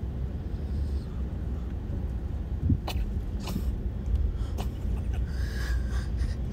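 Steady low rumble of a car's road and engine noise heard inside the cabin, with a few light clicks in the middle.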